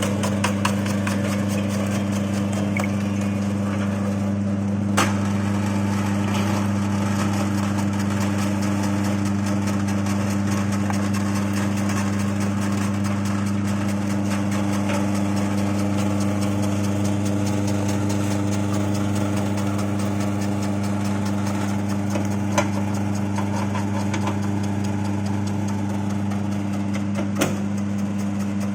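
Motor-driven coconut chip slicing machine running steadily, with a strong hum and a dense fine clatter. A few sharp knocks stand out about 5 seconds in and twice near the end.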